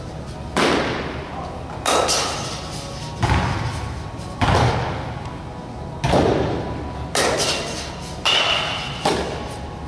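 Batting practice: a string of sharp thuds, about eight in ten seconds, as a bat strikes tossed softballs and the balls hit the netting and walls. Each thud echoes in a large indoor hall.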